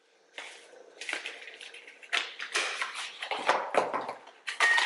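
Irregular crinkling and rustling of a food package being handled, with short sharp crackles. Near the end a sudden louder sound with a steady high tone cuts in.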